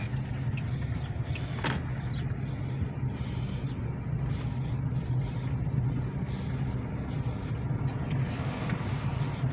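Steady engine and road noise inside the cabin of a car driving slowly along a street, a low hum throughout. A single sharp click sounds about two seconds in.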